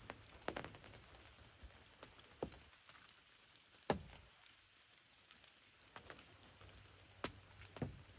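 Scattered raindrops tapping on the fabric ground blind: irregular sharp ticks over a faint hiss, the loudest about four seconds in.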